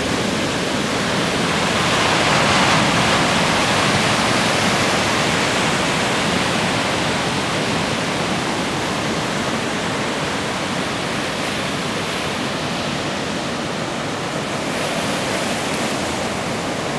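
Ocean surf: a steady wash of breaking waves, swelling about two seconds in, then cutting off suddenly.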